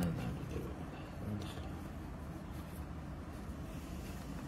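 Faint rubbing and clicking of a plastic threaded fitting being screwed on by hand over taped threads, over a steady low rumble.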